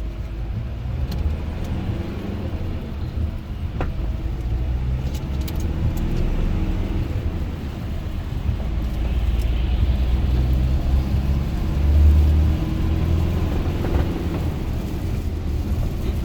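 A car driving at motorway speed: a steady low rumble of engine and road noise that swells briefly about three quarters of the way through, with a few faint clicks.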